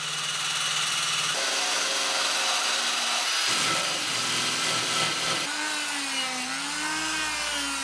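Cordless drill spinning an abrasive stripping disc against a steel wiper arm clamped in a vice, grinding off rust and loose paint, heard in a few short cuts. About five and a half seconds in, a corded rotary multi-tool takes over on the same job, with a motor whine that wavers up and down in pitch.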